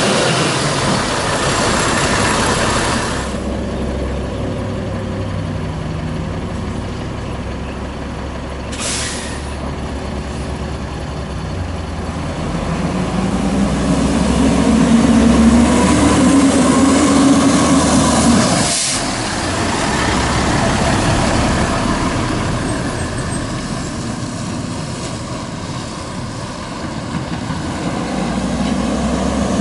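Peterbilt 310 garbage truck's diesel engine pulling away and accelerating through the gears, fading as it drives off. A short air-brake hiss about nine seconds in.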